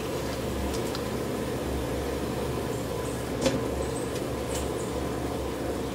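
Steady low hum, with a wooden spoon knocking once against a frying pan about three and a half seconds in as chicken wings are lifted out.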